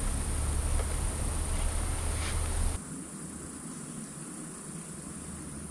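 Steady high-pitched chorus of crickets or other night insects. A low hum sits under it for the first few seconds and cuts off abruptly about three seconds in.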